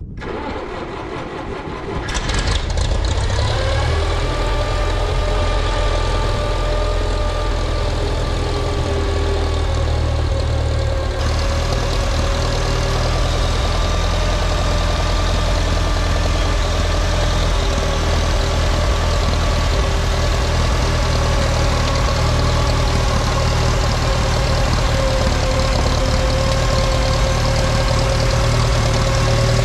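Farmall 504 tractor engine catching about two seconds in, then running steadily at idle.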